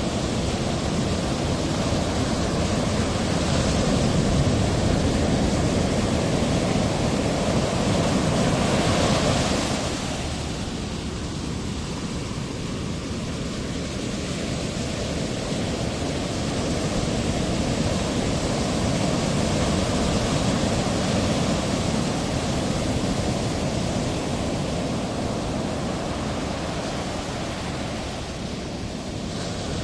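Ocean surf rushing in a steady wash of breaking waves, swelling louder through the first ten seconds and then easing.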